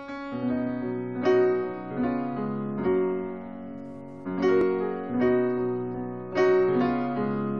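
Solo piano playing a slow ballad intro: chords struck about once a second, each left ringing and fading before the next.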